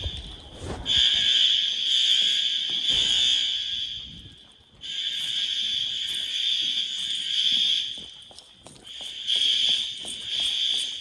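Fire alarm horns sounding a loud, harsh, steady high tone, an activated school fire alarm system. The tone drops out briefly about four seconds in and dips again near the end.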